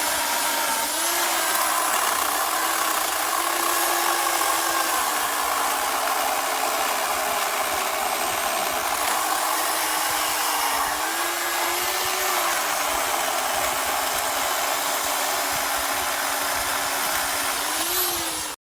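Corded electric chainsaw (WEN CP1518, 15-amp) running with a steady motor whine, its pitch dipping and rising again a few times as the load on the chain changes. It cuts off abruptly at the end.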